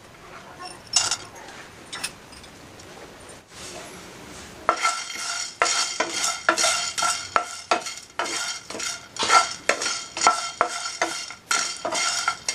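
Whole spices being dry-roasted in a non-stick pan and stirred with a spatula: quiet at first, then from about five seconds in the spatula scrapes the pan in quick repeated strokes, about two a second, rattling the peppercorns, cardamom pods and cloves against the pan.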